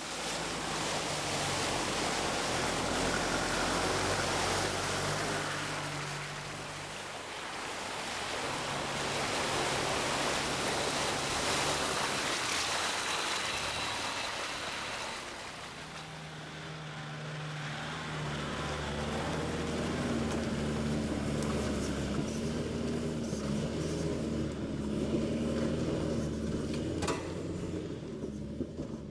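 Four-wheel-drive engine working at low speed off-road, with water and mud swishing under the tyres through a flooded muddy track in the first half, then the engine pulling steadily on a rocky climb. A sharp knock near the end.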